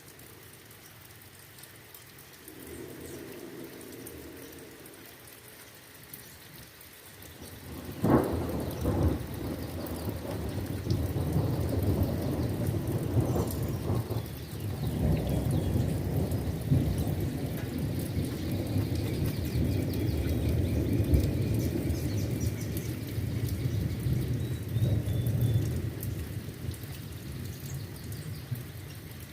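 Thunderstorm: rain falling, then a sharp thunderclap about eight seconds in, followed by long rolling thunder that rumbles on for most of the rest and eases off near the end.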